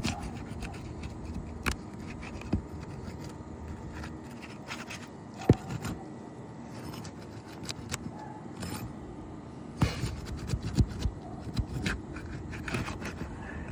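Roofing shingles being worked loose by hand: scraping and rustling with scattered sharp clicks and knocks, one loud knock about halfway through and a quick run of them near the end.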